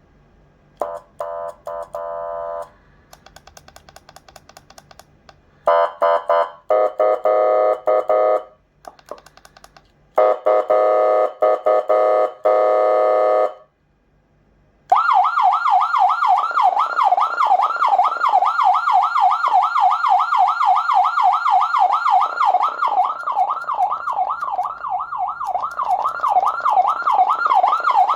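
SA920 200-watt electronic siren amplifier sounding through a siren speaker and stepping through its tones. First come short separate bursts of steady electronic tones, some chopped into rapid pulses. About halfway through, a loud fast yelp starts, sweeping up and down about three times a second without a break.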